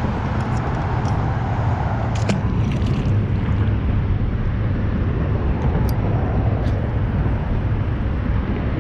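Steady low outdoor rumble, with a few faint short clicks in the middle.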